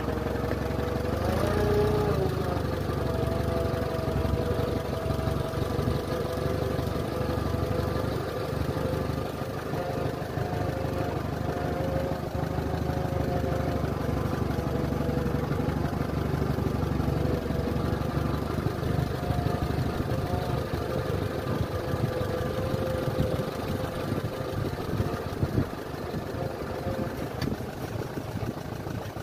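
Allis-Chalmers B tractor's four-cylinder engine running steadily while towing a loaded trailer, heard from the trailer bed, with the trailer rattling and knocking along. The engine's pitch rises briefly about two seconds in, then holds steady.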